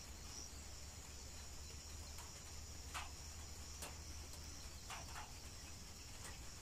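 Faint, steady high-pitched chorus of crickets with a low hum under it, and a few short sharp sounds over it about three to five seconds in.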